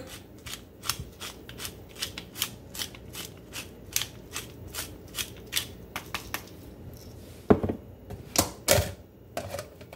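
Wooden pepper mill grinding black pepper: a steady run of dry ratcheting clicks, about three a second, followed near the end by two louder knocks.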